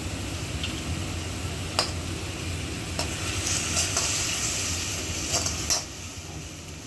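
Tomatoes and spice paste sizzling in oil in a kadai while being stirred and sautéed, with the spatula clicking against the pan several times.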